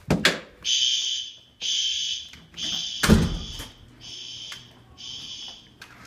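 Building fire alarm sounding in repeated high-pitched blasts, each under a second long. A heavy thud comes about three seconds in, and the blasts are quieter after it.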